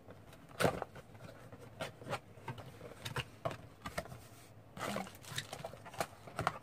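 Cardboard box being opened by hand: flaps lifted and folded back, with scattered sharp taps and rustles of the card, the loudest near the start.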